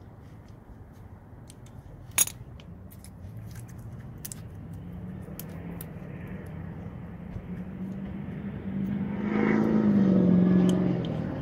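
A motor vehicle's engine hum that builds up, is loudest near the end, then eases off, like a vehicle going past. A single sharp click comes about two seconds in.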